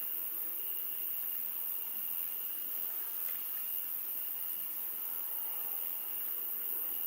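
A chorus of crickets singing steadily: several high-pitched trills at different pitches, the highest pulsing rapidly, over a light hiss.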